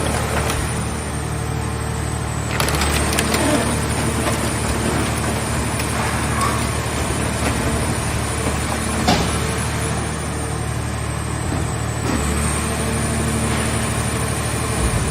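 Mobile car-shell baler running, its engine and hydraulic pump giving a steady hum while a scrap car body is pressed, with creaking and cracking of sheet metal and a sharp bang about nine seconds in.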